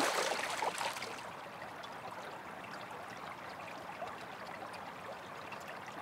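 A kkeuri (Korean piscivorous chub) splashing as it leaps from the water after a dragonfly. The splash is loudest at the very start and dies away within about a second, leaving a steady soft wash of water.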